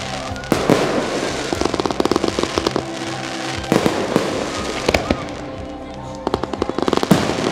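Fireworks shells bursting in quick clusters of bangs and crackles, with a short lull near the end before another volley. Music plays underneath.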